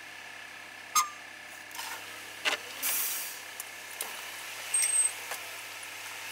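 Steady background of a car's cabin on a city street, as picked up by a dashcam, with a faint constant whine, a few sharp clicks and knocks, the loudest about a second in, and a brief hiss around three seconds in.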